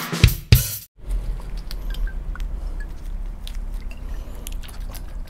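The end of a short music sting with two sharp hits, cut off abruptly about a second in. After it come a low steady hum and scattered small clicks and taps as a perfume bottle is handled in gloved hands.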